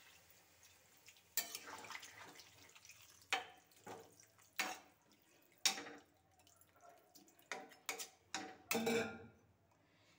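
Hot water trickling into a kadai and tapering off, then a metal spatula stirring the watery gravy, sloshing and knocking and scraping against the metal pan about eight times at irregular intervals.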